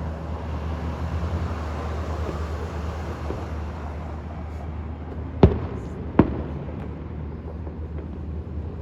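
Two sharp aerial firework bursts about a second apart, over a steady low background rumble.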